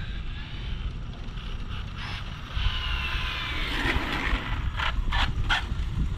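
Arrma Limitless RC car's 8S brushless motor and gear drivetrain whining at speed, the whine falling in pitch as the car goes past and away. A few short sharp sounds follow about five seconds in.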